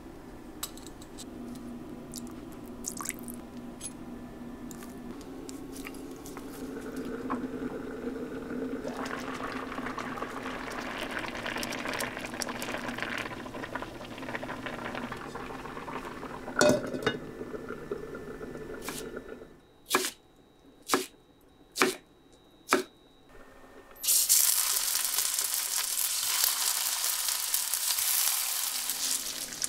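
Red seasoned stew simmering and being stirred in a cast-iron pot on an induction hob, with a steady low hum under it and a knock against the pot. After four sharp clicks about a second apart, tofu sizzles loudly as it goes into hot oil in a stainless-steel frying pan.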